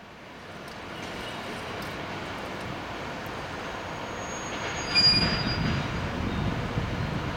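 A JR Freight DE10 diesel-hydraulic locomotive running at low speed while shunting, its engine and running gear making a steady rumble. About five seconds in, a short high-pitched squeal comes in over the rumble.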